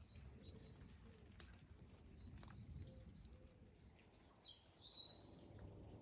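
Faint soft rain with scattered drips, and a bird calling: a sharp high chirp about a second in and a short call later on.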